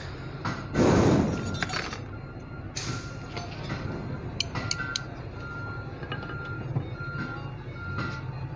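Metal tools and small compressor parts clinking and tapping against the steel bench and the aluminium crankcase of a Bock FK40 bus AC compressor during assembly. A short, loud rush of noise about a second in.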